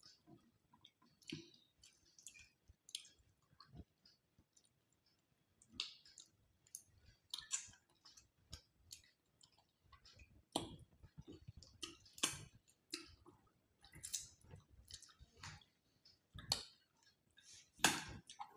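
Quiet eating sounds from two people eating by hand: scattered chewing and lip-smacking, with short, sharp clicks at irregular intervals.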